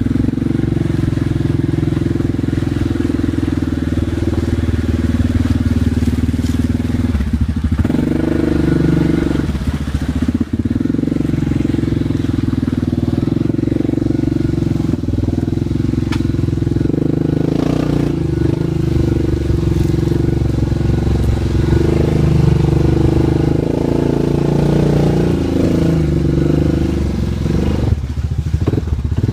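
Yamaha Grizzly 700 ATV's single-cylinder engine running under load as the quad crawls up a rocky stream bed, its revs rising and falling.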